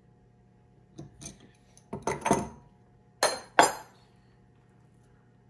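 Metal tools and hydraulic fittings being handled and set down on a wooden workbench, with an adjustable wrench among them. A few light clicks come first, then a cluster of clinks about two seconds in, then two sharp metallic clanks with a short ring a moment apart.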